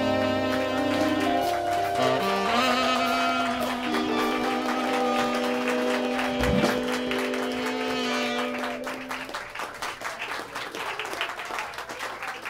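Live jazz band, with saxophone, keyboard, upright bass and drums, playing the last held notes of a tune, with one low thump a little over halfway through. About two-thirds in, the held notes die away and the audience applauds.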